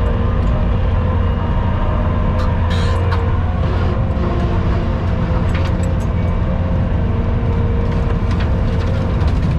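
Skid steer engine running steadily under load, driving a hydraulic bush hog (rotary cutter) through brush, with a low drone and a steady whine. A few sharp cracks come about two and a half seconds in and again around six seconds.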